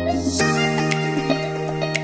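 Instrumental background music with held notes, changing chord about half a second in.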